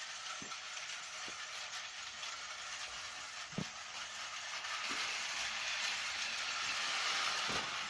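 Battery-powered Tomy toy train running on plastic track: a steady high whir from its small motor with a few sharp clicks, growing louder about five seconds in.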